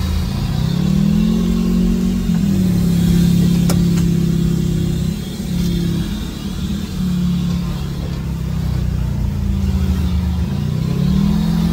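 Off-road 4x4's engine running under load: its pitch climbs as it accelerates about a second in, steps down a couple of seconds in like a gear change, holds steady, then climbs again near the end.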